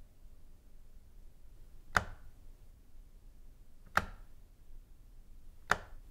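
A wall light switch clicking three times, about two seconds apart, over a quiet room hiss.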